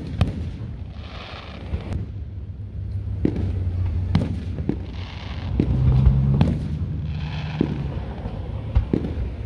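Fireworks display: aerial shells bursting overhead in a string of sharp bangs, roughly one a second, over a continuous low rumble.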